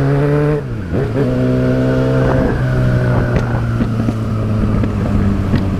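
Motorcycle engine running while riding, its pitch dropping sharply about half a second in as the revs fall for a gear change, then holding steady, with a second brief dip about two and a half seconds in.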